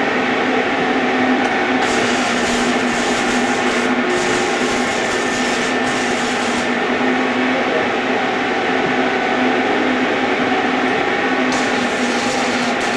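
Electric arc welding: a steady crackling hiss over a constant hum, with sharper, hissier stretches that come and go.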